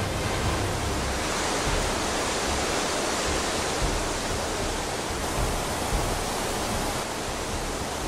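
Floodwater pouring over a ledge and churning into spray: a steady, dense rushing of water.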